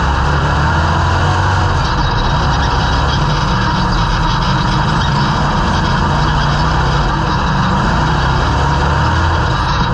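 Dirt-track stock car engine running hard at racing speed, heard from inside the cockpit, its note rising and falling through the corners.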